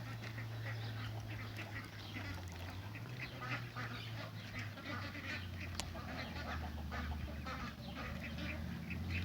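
A flock of ducks quacking, many short calls overlapping, over a low steady hum. There is one sharp click about six seconds in.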